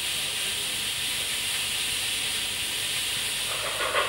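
Steady hiss of steam. Near the end, the rhythmic exhaust beat of a working steam locomotive fades in, about four beats a second.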